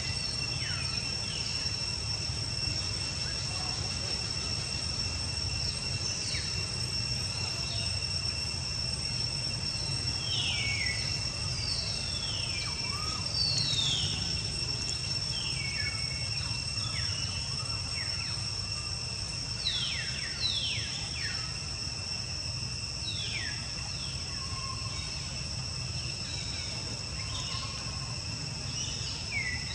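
Forest ambience: insects drone in a steady high even tone while birds give many short whistled calls that sweep downward in pitch, scattered through the whole stretch, over a low steady rumble.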